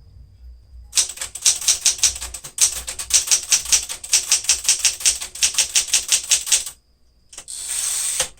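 1975 Smith-Corona Galaxie Twelve manual typewriter being typed on, a quick run of sharp keystrokes at about five a second for several seconds. Near the end there is about a second of continuous rushing mechanical noise, the carriage sliding across.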